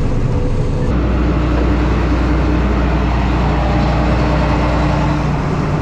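Combine harvester running steadily at a loud, even level. About a second in, a deep steady drone sets in under the machine noise.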